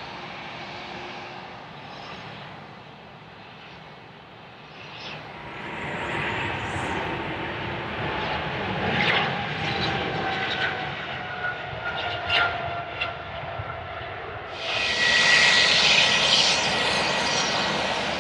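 Jet airliner engines at takeoff power: a steady rumble swells from about five seconds in, with a whine that slowly falls in pitch. A sudden loud rushing hiss comes in near the end.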